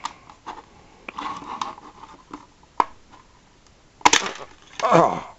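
Hard plastic clicking and scraping as a Jazwares Micro Galaxy Squadron Inquisitor Transport Scythe toy ship is pried open by hand, ending in a loud sharp snap about four seconds in as the hull comes apart. A short voice sound falling in pitch follows just after.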